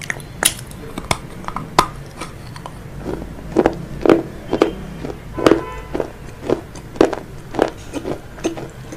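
Crispy fried chicken being bitten and crunched close to the microphone, about two sharp crunches a second, over faint background music.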